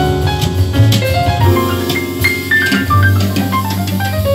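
Instrumental jazz with piano and drums played back through a pair of Diatone DS-251 alnico-magnet three-way bookshelf speakers; in the second half the piano runs down a scale over a steady bass.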